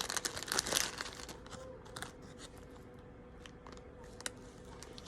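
Plastic crinkling and rustling for about the first second, then scattered light clicks as small plastic Lego pieces are handled.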